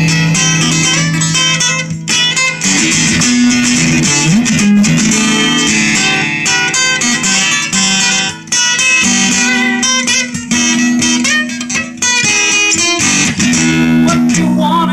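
Acoustic guitar being picked and strummed in a continuous run of chords, with ringing low notes and brief drops in level between phrases.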